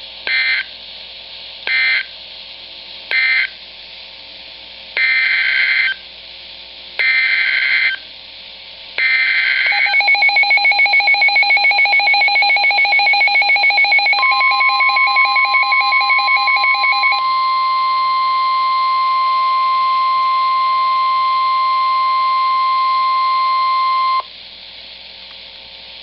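NOAA Weather Radio's EAS/SAME digital data bursts, a screeching modem-like warble. Three short end-of-message bursts end the previous warning, then three longer header bursts announce the next one. Next comes the weather radio's own rapid pulsing alert beep, and the steady 1050 Hz NWR warning alarm tone sounds for about ten seconds, cutting off shortly before the end.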